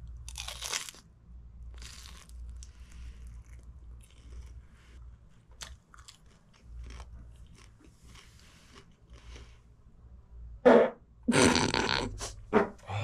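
Close-up biting and chewing of a crisp, chewy fried rice-cake sweet (gaeseong juak), with small crunches and mouth clicks scattered throughout. About eleven seconds in comes a loud fart lasting a second or two.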